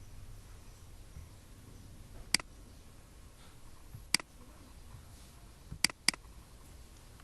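Computer mouse button clicked four times: two single clicks a couple of seconds apart, then a quick double-click, over a faint low hum.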